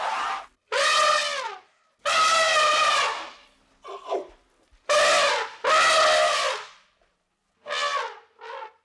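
A series of about eight loud, pitched animal calls, each lasting half a second to a second and falling slightly in pitch, with short silences between them.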